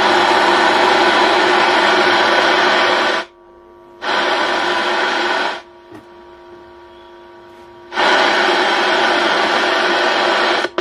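Home theater amplifier's speaker putting out a loud, harsh, distorted noise instead of clear sound, cutting out abruptly twice, about three seconds in and again from about five and a half to eight seconds, leaving only a faint hum. This is the amplifier's unclear-sound fault, still present after the volume potentiometer was replaced.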